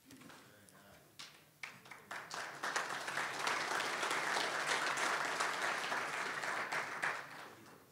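A room of people applauding: a few scattered claps that build into steady applause, then die away about seven seconds in.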